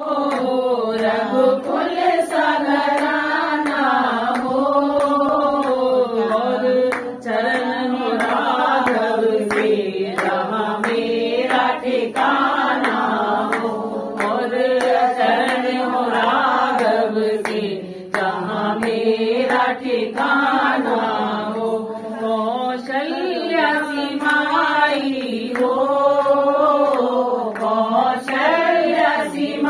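Voices singing a Hindu devotional chant (bhajan) in a sustained, wavering melody with hardly a break.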